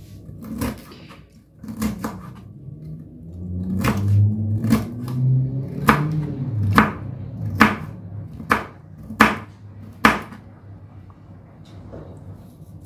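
Kitchen knife chopping a carrot into small cubes on a plastic cutting board: about ten sharp knocks of the blade against the board, roughly one a second. A low hum swells and fades in the middle.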